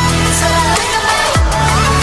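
Background electronic pop music with heavy bass notes and a falling bass sweep about once a second.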